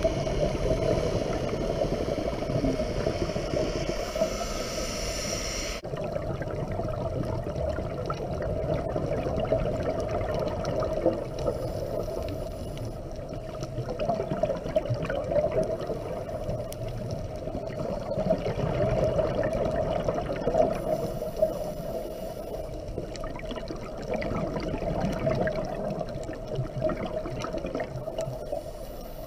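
Muffled underwater noise heard through a camera housing on a scuba dive: a steady low rush of water that swells and fades every few seconds. A higher hum with several tones runs over it and cuts off suddenly about six seconds in.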